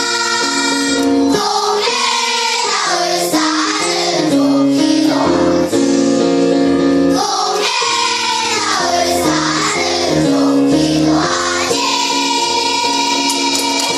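A group of children singing a song together over a musical accompaniment.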